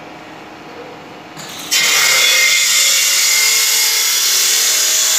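SHX1320A multi-blade board saw running quietly, then about a second and a half in its sound jumps suddenly to a loud, steady hissing whine as the blades start ripping wood.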